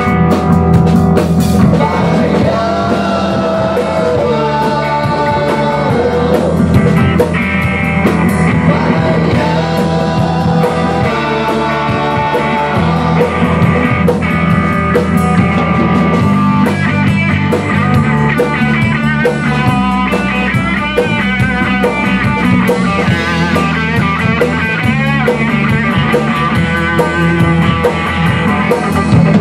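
Rock band playing an instrumental passage: electric guitar over electric bass and a drum kit.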